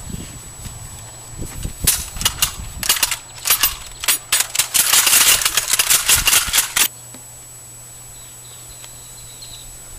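Gunfire: sharp cracks starting about two seconds in, thickening into a dense, rapid machine-gun-like burst that cuts off suddenly about seven seconds in.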